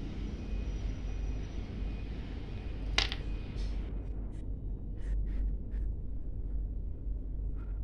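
A sharp click about three seconds in as the hermit crab's shell meets the wooden tabletop, then a few faint ticks as its legs tap the wood while it walks, over a steady low rumble.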